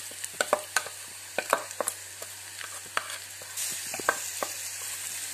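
Chilli powder paste being scraped from a bowl into a kadai of onions and spices frying in hot coconut oil: sharp clicks and knocks of the spoon and ladle against the metal over a steady sizzle, which grows louder a little past halfway as the paste meets the oil.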